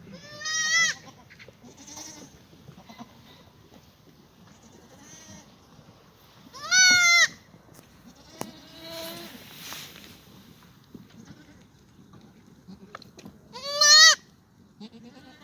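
Black goats bleating: three loud, wavering calls of about half a second each, spaced roughly seven seconds apart, with fainter bleats from other goats in between.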